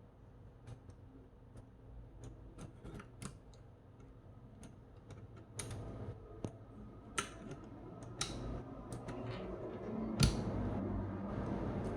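Keys being typed on a Keychron K1 SE low-profile mechanical keyboard: irregular clicking, sparse at first and quicker in the second half. A low steady hum sits underneath toward the end.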